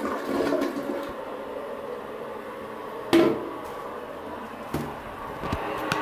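Early-1990s Kohler Wellworth toilet finishing its flush: water running as the bowl refills. A sharp knock about three seconds in is the loudest sound, with a couple of lighter clicks after it.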